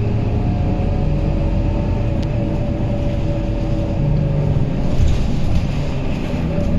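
Scania K230UB city bus under way, heard from inside the passenger cabin: its five-cylinder diesel engine and drivetrain give a steady low rumble with a faint steady whine over it. The sound swells slightly about four to five seconds in.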